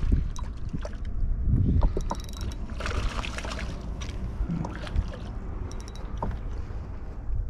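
Wind rumbling on the microphone, with scattered clicks from a spinning reel being wound in and water splashing as a hooked rainbow trout thrashes at the surface.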